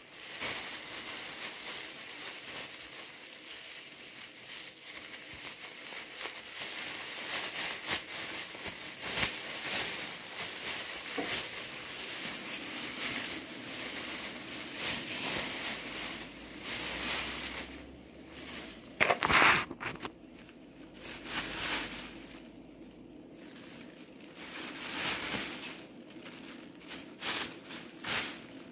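Thin plastic bag crinkling and rustling as it is handled. It starts as a dense, continuous crackle and turns to separate irregular bursts of rustling about two-thirds of the way through.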